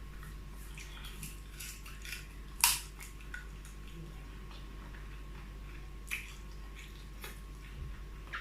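Mouth sounds of chewing and crunching soft chicken bones close to the microphone: scattered crisp cracks and clicks, the loudest about two and a half seconds in.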